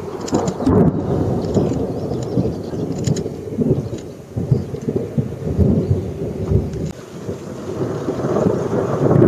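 Rolling thunder from a thunderstorm, a long irregular rumble that eases about four and seven seconds in and swells again near the end.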